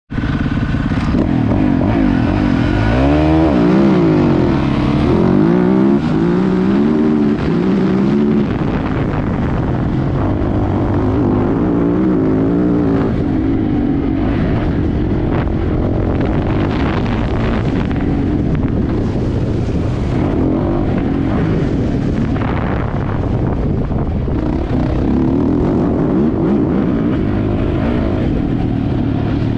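Yamaha YZ450F's single-cylinder four-stroke engine ridden hard around a dirt track, its pitch rising and falling again and again with the throttle and gear changes. It is heard close up from a camera mounted on the bike.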